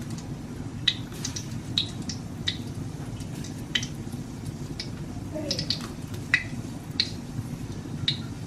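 Kitchen sounds at a gas stove: short, sharp clicks and ticks at irregular intervals, about one a second, over a low steady hum.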